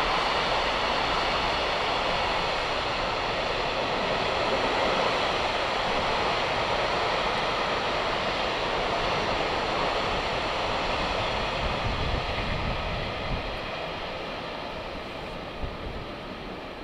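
A train's steady running noise, slowly fading away, with a few faint ticks near the end.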